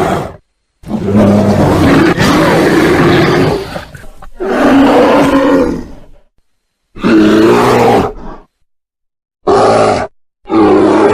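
Bear roars and growls: five separate loud, rough calls of varying length, the first two long and the last ones short, each cut off abruptly into dead silence.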